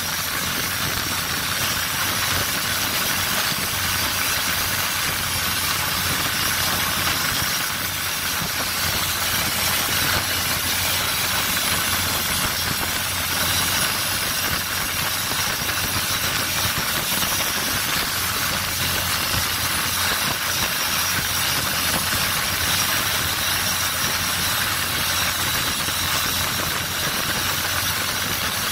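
Longtail boat's engine running steadily under way, over a constant rush of wind and water.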